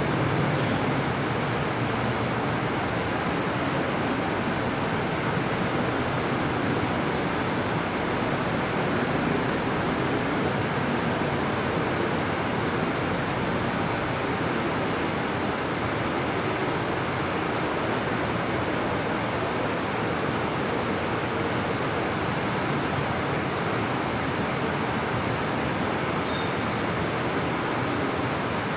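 Steady, even rushing hiss with no changes.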